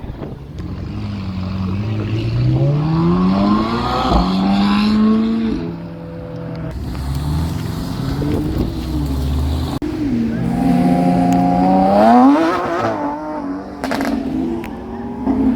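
Car engine revving, its pitch climbing steadily for a couple of seconds, holding, then falling back. It climbs again about ten seconds in and drops after a peak near twelve seconds.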